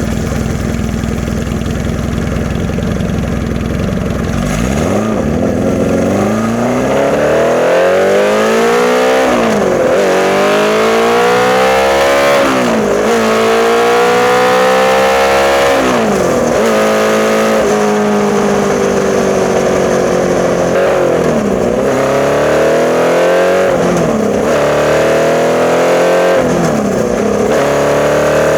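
1981 Honda CB650 inline-four engine through a Hindle 4-2-1 full exhaust, ridden under way. It holds a steady low note for the first few seconds, then pulls up through the revs again and again, the pitch rising and dropping sharply at each gear change.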